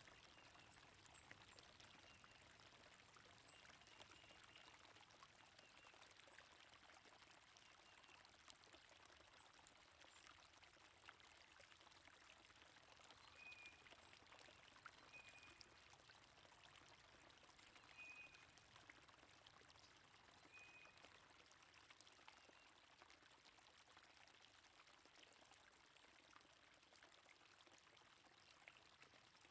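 Faint, steady flow of stream water, with a few short bird chirps in the middle.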